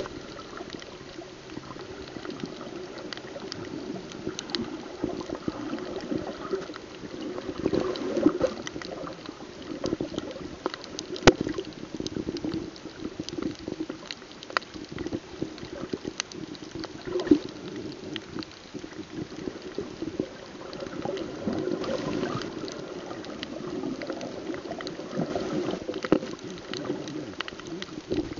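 Muffled underwater water noise, a sloshing, bubbling wash that swells and fades, picked up by a snorkeler's camera below the surface, with scattered sharp clicks throughout.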